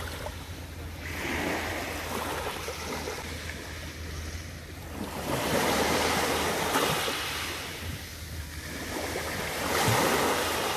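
Small waves breaking and washing up a coarse, shelly sand shore: rushing surf that swells and falls back in three surges, the loudest about five to seven seconds in and again near the end.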